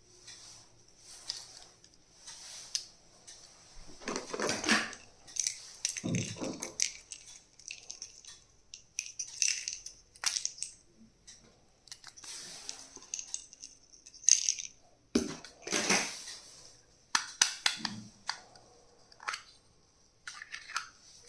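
Stationery items being handled and unpacked by hand: irregular plastic clicks, taps and short rustles.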